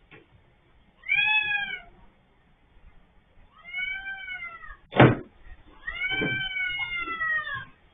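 A cat meowing three times, the third call long and drawn out. A single sharp knock comes about five seconds in.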